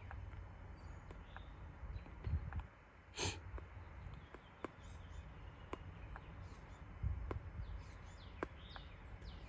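Faint sharp electrical clicks at irregular spacing, roughly one a second, from the Chevrolet Suburban's electrical system as its engine computer switches things on and off by itself, which the owner takes for a faulty engine computer. One louder short knock comes about a third of the way in.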